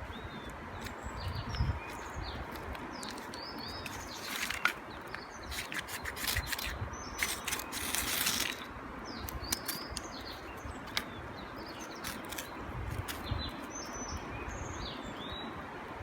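Small birds chirping over and over against a steady outdoor background hiss, with a few short bursts of rustling and clicks about four and seven seconds in.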